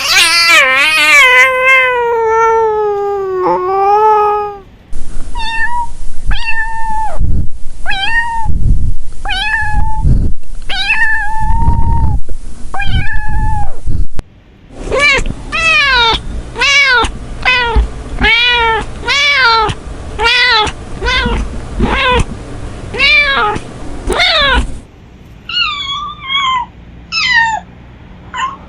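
Domestic cats meowing, in several spliced clips. First comes one long drawn-out yowl falling in pitch, then single meows about once a second with low thuds underneath, then a fast run of meows about two a second. Near the end there are fainter, higher-pitched meows.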